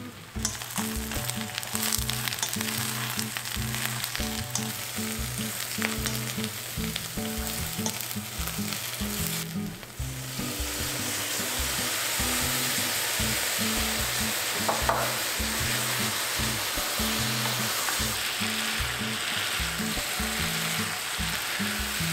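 Eggplant pieces sizzling and crackling in a hot oiled wok as they are stir-fried, with sharp pops scattered through the first half. About ten seconds in, the sizzle dips briefly, then comes back denser and steadier once the eggplant is coated in seasoning sauce. Soft background music with low notes plays underneath.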